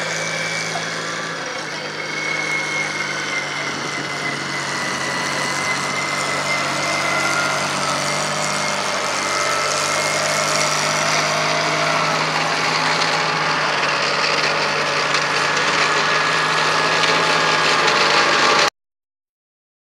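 Alvis Scorpion tracked light tank engine running steadily as the vehicle drives, with a thin high whine over the engine note. The sound cuts off suddenly near the end.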